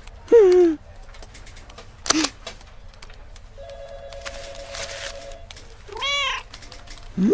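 Cat meowing several times: a falling meow just after the start, a short call about two seconds in, an arching meow about six seconds in and a rising one at the very end. Between them a telephone rings with a steady two-tone electronic trill for about two seconds.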